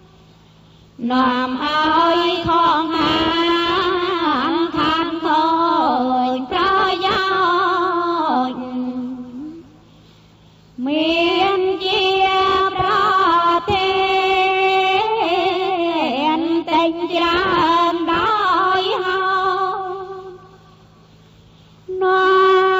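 A single voice chanting Buddhist verses in Pali in a slow, melodic style, holding long wavering notes. Two long phrases are split by a short pause about ten seconds in, and a new phrase begins near the end.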